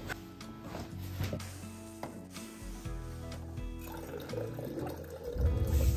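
Background music over a few light handling clicks, then liquid running from a countertop dispenser for about a second. Near the end, a car's low rumble comes in suddenly.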